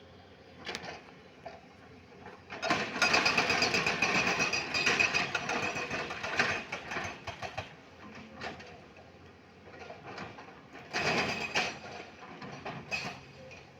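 Excavator's diesel engine working with a rapid mechanical clatter. It rises in a long loud surge about three seconds in and a shorter one near the end, easing back in between.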